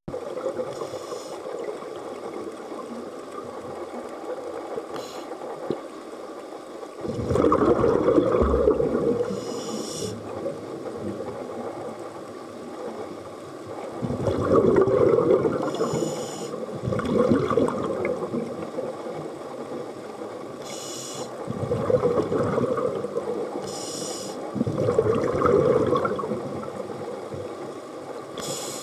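Scuba diver breathing through a regulator underwater: a short high hiss with each inhale, then a longer, louder bubbling rush with each exhale. There are several breaths, a few seconds apart.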